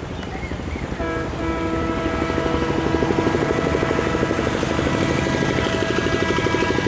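WDM3A diesel locomotive approaching, sounding a long steady horn blast from about a second in, over the rhythmic throb of its diesel engine, which grows louder as the train nears.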